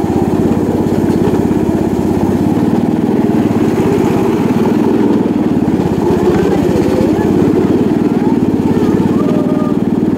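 A small engine running steadily with a fast, even pulse.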